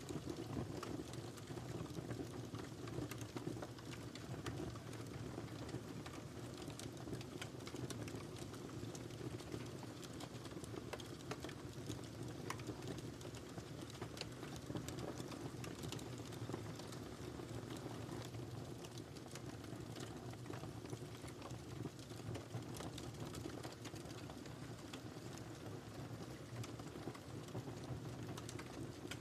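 Wood fire burning in a fireplace: a steady low rumble of flames with frequent small, irregular crackles and pops.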